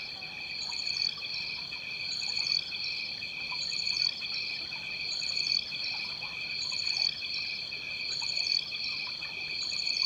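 Chorus of insects trilling at a steady high pitch, the sound swelling and cutting back in a cycle about every second and a half, with a short higher chirp at each peak.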